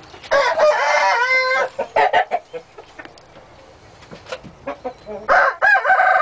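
Hybrid red junglefowl × domestic rooster crowing twice: one crow near the start, lasting about a second and a half, and another starting near the end. A few short calls come between them.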